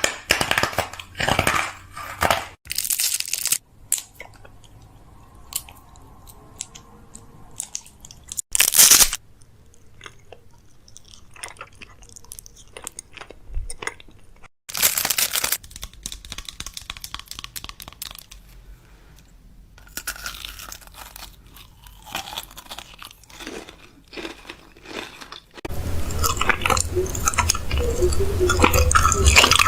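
Crunchy snack being bitten and chewed close to the microphone: separate loud crunches with quieter stretches between. About 26 seconds in, a denser, continuous stretch of crackling noise takes over.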